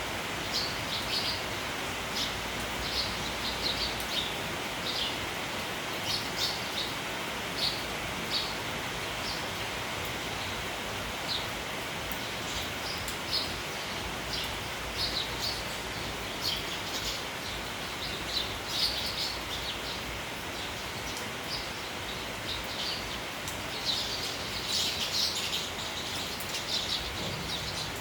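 A flock of sparrows chirping in many short, quick notes over the steady hiss of rain; the chirping gets busier near the end.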